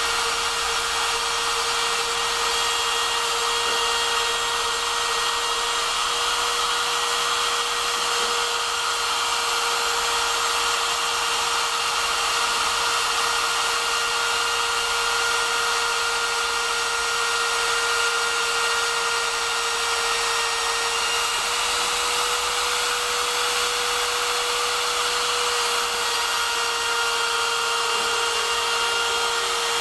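Homemade CNC router's spindle motor running steadily with a constant whine as it cuts into wood; the pitch lifts slightly for a few seconds past the middle, then settles back.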